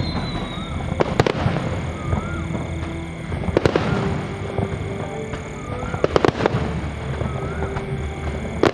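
Fireworks bursting overhead, with sharp bangs every two to three seconds, some coming in quick clusters, over music playing in the background.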